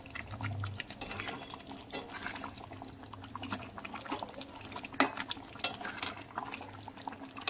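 A metal utensil scraping and clinking against a pan as thick chicken kosha is stirred. The strokes come irregularly, with a sharper clink about five seconds in.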